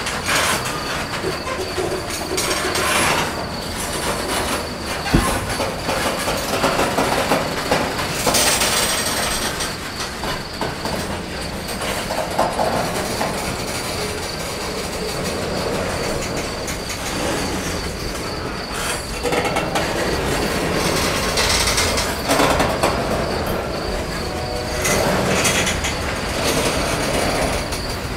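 Norfolk Southern freight train's covered hopper cars rolling past close by, wheels rumbling and clattering on the rails with a steady high-pitched wheel squeal.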